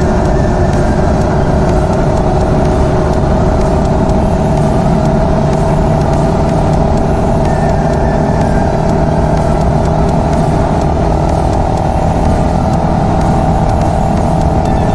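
GPX Legend Gentleman 200 motorcycle's single-cylinder engine running at a steady cruise, holding an even note, mixed with wind and road noise on the bike-mounted camera.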